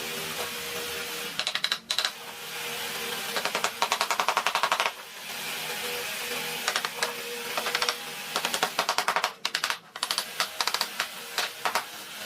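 A woodworking power tool rattling in several bursts of rapid clicks, about ten a second, over a steady hiss.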